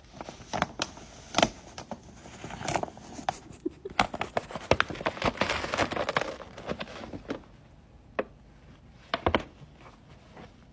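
Brown paper bag rustling and crinkling as a cat moves around inside it: irregular crackles that come thick and fast through the middle, then die down to a few last crinkles near the end.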